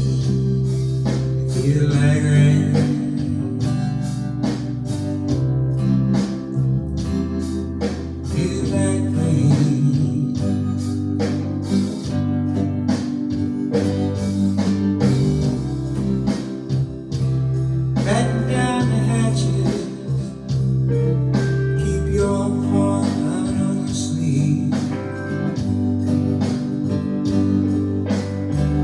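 Instrumental break in a blues song: guitar playing over a steady bass line and drum beat, with no lyrics sung.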